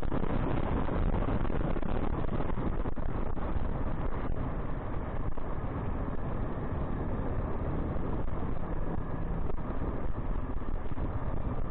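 Dual-sport motorcycle running steadily under way, with wind noise on the microphone.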